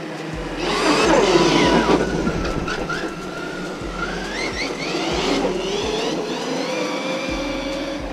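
Surpass Hobby 4076 2200 kV brushless motor and drivetrain of a 1:8 RC monster truck whining, running on a 3S battery. The pitch rises and falls as the truck speeds up and slows. It is loudest a second or two in, then climbs again about four seconds in and holds near the end.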